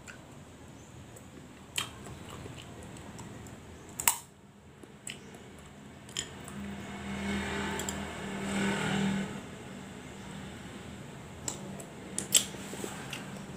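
Crab being eaten by hand: sharp clicks and cracks of the shell being picked apart, with chewing. A low hum swells and fades in the middle.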